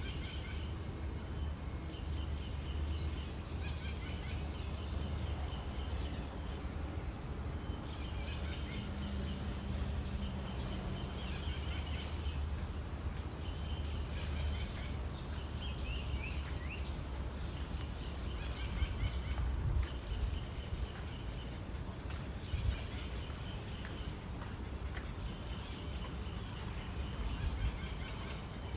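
Cicadas droning in a steady, high-pitched chorus without a break. Birds chirp faintly behind it in short repeated notes and a few falling calls.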